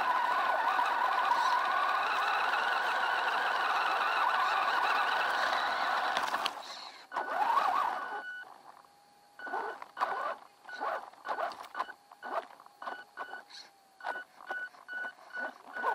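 WLtoys 10428 RC truck's electric motor and gears whining under drive, with the rush of the truck pushing through leaf litter and undergrowth, picked up by its onboard camera. After about six seconds the steady run ends with one rising-and-falling rev, then a string of short throttle blips, about two a second.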